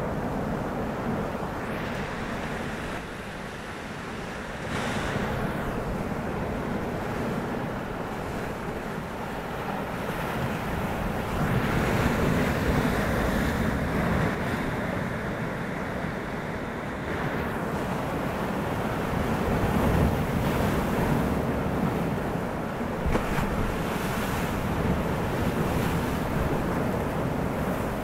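Waves on a choppy sea breaking and washing in a continuous wash of surf that swells louder a few times.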